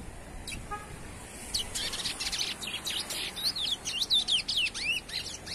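Young chestnut-bellied seed finch (curió) singing a rapid run of whistled notes, many sweeping downward, starting about a second and a half in.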